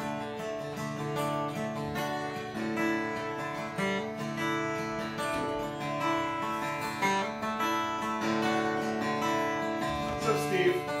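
Acoustic guitar played solo, its chords ringing and changing every second or so.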